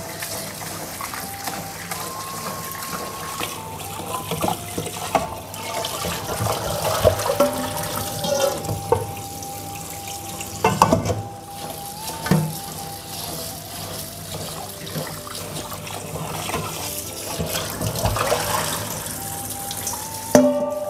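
Tap water running into a stainless steel sink and bowl while rice is swished and rinsed by hand. Several metal clanks from the steel bowl and colander against the sink, the loudest about eleven seconds in and again near the end.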